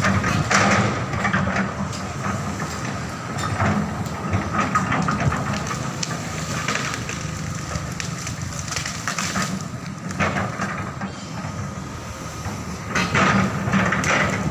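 Hydraulic excavator at work, its diesel engine running steadily with a held whine, and irregular clattering and cracking as it handles the cut tree branches. It grows louder near the end.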